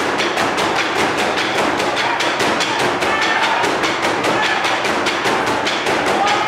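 Burundian traditional drum ensemble (ingoma) beating large upright wooden drums with sticks: many drums struck together in a fast, even beat.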